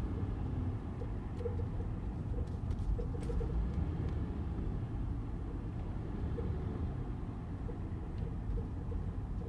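A 2018 Toyota 4Runner TRD Off-Road being driven, with a steady low road and engine rumble. Through it come intermittent light rattling clicks, a small cluster a few seconds in and another near the end; their source in the truck is not yet found.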